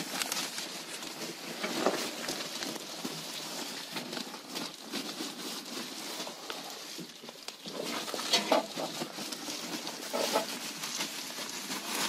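Rustling and crinkling of house wrap and insulation being handled and pushed into place under a floor, with scattered small scuffs and knocks and a few louder rustles.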